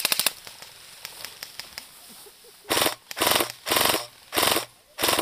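Airsoft rifles firing full-auto bursts of rapid mechanical clicks: a short burst right at the start, then five bursts in quick succession from about two and a half seconds in.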